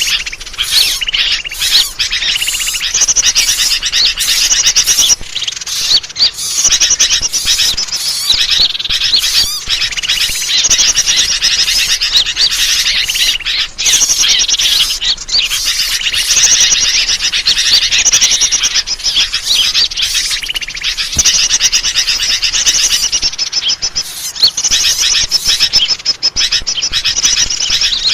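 Dense, loud chorus of many small birds chirping and trilling rapidly at high pitch with no break: a bird-lure (pikat) recording made to draw wild birds in.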